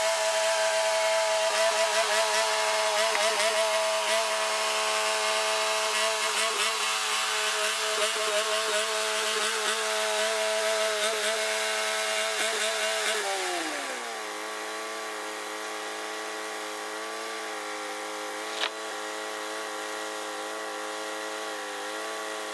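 Mighty Mite band sawmill running steadily with its band blade cutting through a Sitka spruce log, a hissing sawing noise over the engine. A little past halfway the engine winds down to a lower, quieter idle, with one sharp click a few seconds later.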